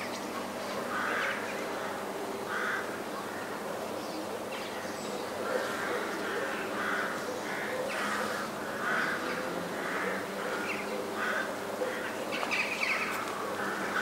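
Russian Orthodox church bells rung by hand from the belfry: the smaller bells are struck in a quick, uneven pattern over the lasting hum of the larger bells.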